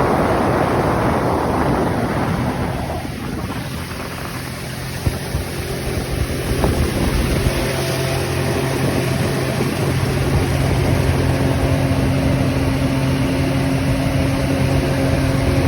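Jet ski engine running at a steady pitch under wind and water noise. Wind and splashing are loudest for the first few seconds, and the engine's steady note comes through more clearly from about seven seconds in.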